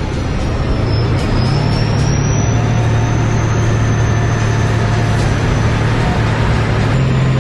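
Tank engine running steadily, a heavy low drone with a thin high whine gliding above it.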